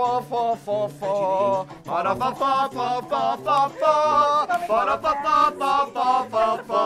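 Several men singing a rhythmic chant together, without instruments.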